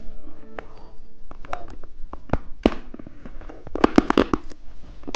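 Irregular sharp crackles and clicks from candy and its plastic packaging being handled, thickest about four seconds in.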